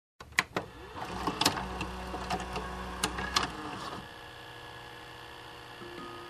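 A VCR loading a videotape: a string of sharp mechanical clicks over a low motor whir that stops about four seconds in, leaving a steady tape hiss and hum. A few plucked guitar notes begin near the end.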